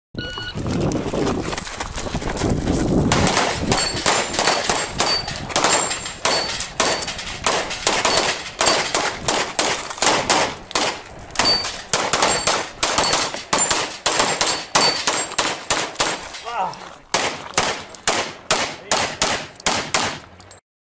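Rapid pistol fire from practical shooting competitors, shots coming several a second and at times overlapping, mixed with short high pings of steel plate targets being hit. It begins about three seconds in and runs in strings nearly to the end.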